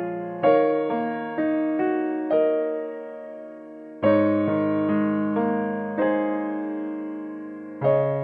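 Background piano music: gentle notes and chords struck every half second or so, each ringing out and fading, with a longer held chord fading from about two and a half seconds in before the playing picks up again.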